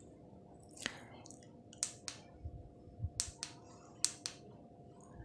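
Sharp clicks of the push buttons on a ring light's inline controller being pressed, about seven in all, mostly in quick pairs, as the light is switched between its colour and brightness settings.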